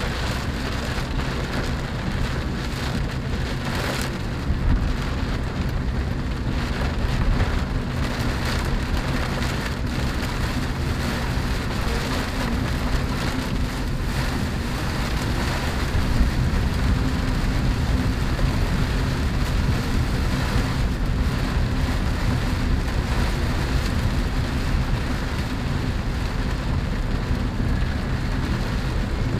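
Rain falling on a Chevrolet Spark's roof and windshield, heard from inside the moving car's cabin over its steady engine and road noise.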